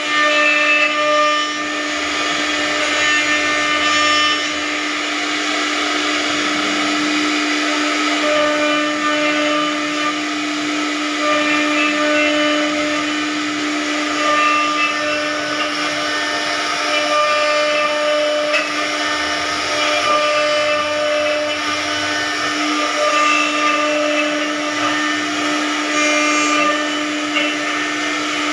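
An electric motor running steadily, a constant whine with a hiss over it, typical of a woodworking power tool.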